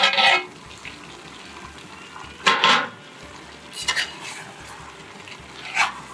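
A spoon stirring beef pieces in an aluminium pot, scraping and knocking against the pot about four times, over a steady sizzle. The beef is cooking in its masala on high flame with little water, its juices starting to release.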